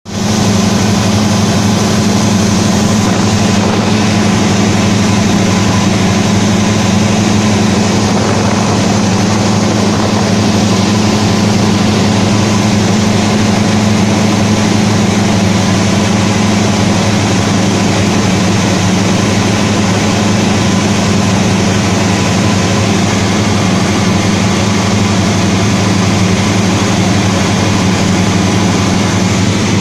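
Cessna 172D's Continental O-300 six-cylinder piston engine and propeller running steadily in flight, heard inside the cabin as an even low drone under a constant rush of air.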